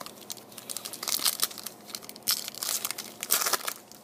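Wrapper of a trading-card pack being torn open and crinkled in the hands, in several irregular crackly bursts that stop near the end.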